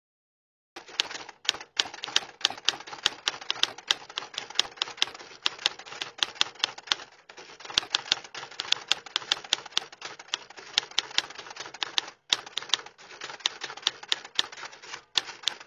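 Typewriter keys clacking in quick, irregular strokes, starting about a second in and broken by a few short pauses.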